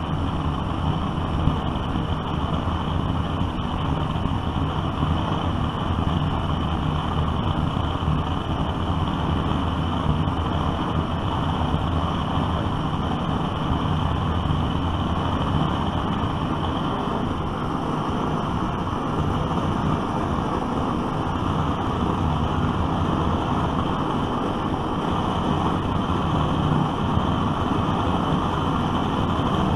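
Vintage brass gasoline blowtorch burning with a steady, unbroken roar.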